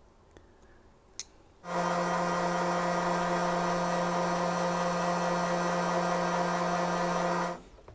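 Electric heat gun switched on about a second and a half in, its fan motor running with a steady hum and rush of air as it shrinks heat-shrink tubing over a wire connection, then switched off shortly before the end.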